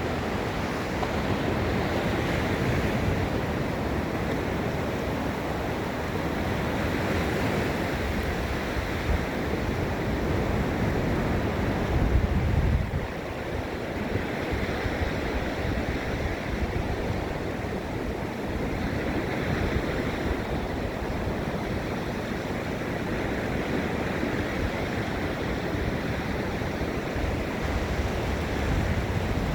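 Ocean surf washing steadily onto the beach, a continuous hiss of breaking waves. A low rumble of wind on the microphone swells about twelve seconds in.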